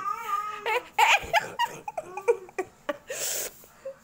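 A young child giggling and laughing in short bursts, with a breathy burst about three seconds in.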